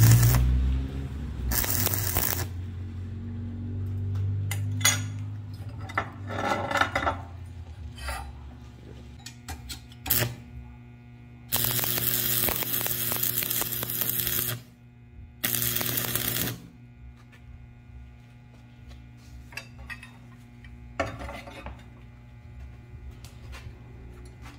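Stick (arc) welder crackling and sizzling in several bursts, the longest about three seconds near the middle, with short sputters between them as the electrode is struck. A steady electrical hum runs underneath.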